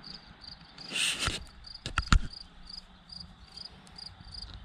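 An insect chirping steadily in short, high pulses, about three a second. A brief rustle comes about a second in and a couple of sharp clicks about two seconds in.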